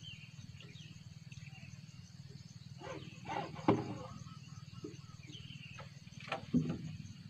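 Insects chirping steadily at dusk over a low pulsing drone, with a sharp knock about three and a half seconds in and a short louder sound near the end.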